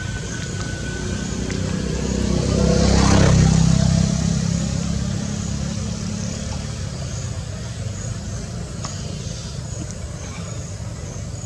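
A motor vehicle passing by, its engine sound swelling to a peak about three seconds in and then fading over the next few seconds, over a steady low rumble.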